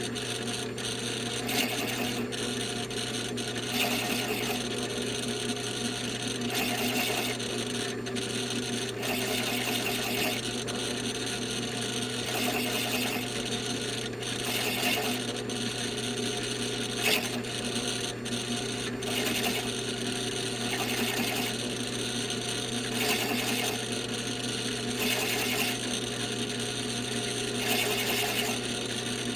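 A counterbore cutter scraping into wooden stock in repeated strokes, roughly one a second, over a steady low hum.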